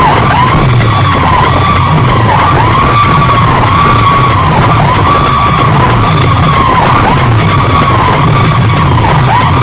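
A DJ sound system played at full volume: an electronic tone near the top of the voice range swells and dips in arches about once a second over a repeating bass pattern, heavily compressed and distorted.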